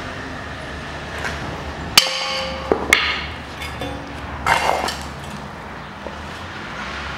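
Steel front steering knuckle and wheel hub, the hub still carrying the bearing's inner race, clanking as they are handled and set down. A sharp ringing metal knock comes about two seconds in, more ringing knocks near three seconds, and a duller clatter about four and a half seconds in, over a steady low hum.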